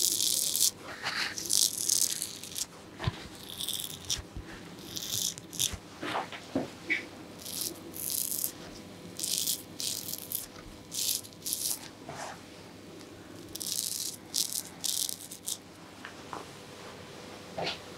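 Straight razor scraping through lathered beard stubble in short strokes: a crisp rasping that comes in quick runs with brief pauses between them. It is picked up close by a clip-on microphone at the customer's neck.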